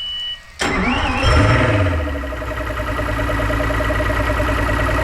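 Mercury Pro XS outboard engine: a short beep at key-on, then the starter cranks and the engine catches about a second in, flares briefly and settles to a steady idle. It is running a cylinder down, with the number two ignition coil unplugged so that cylinder does not fire.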